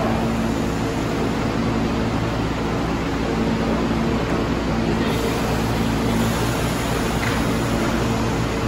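New York City subway train: a steady hum with several steady tones over continuous rumbling noise.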